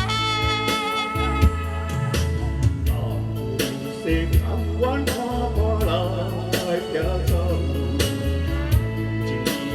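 Instrumental accompaniment music with a pulsing bass line and a guitar-like melody. A held trumpet note carries over into the first second and then fades out.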